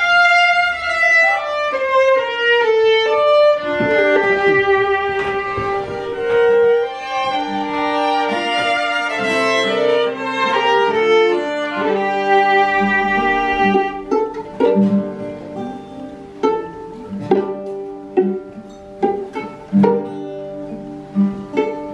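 Violin playing a melody that steps downward at first, over a string accompaniment. About two-thirds of the way through, the long bowed notes give way to short plucked notes.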